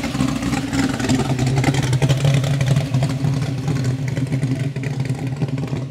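Holden HQ's engine running with a steady, deep, even note.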